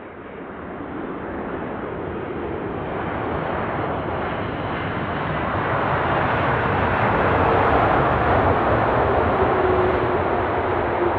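Boeing 747-400F freighter's four jet engines passing close on its landing, a steady jet noise that swells from faint to loud, peaks about eight seconds in and eases slightly, with a faint low whine near the end.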